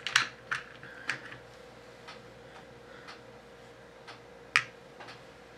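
Light clicks and taps of lead airgun pellets being picked out by hand and one set down on the metal pan of a digital pocket scale, the sharpest just after the start and about four and a half seconds in. A faint tick repeats about once a second underneath.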